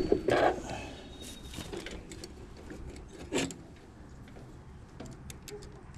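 Scattered clicks and knocks of tools and small parts being handled during repair work, with a sharp knock at the very start and another knock about three and a half seconds in.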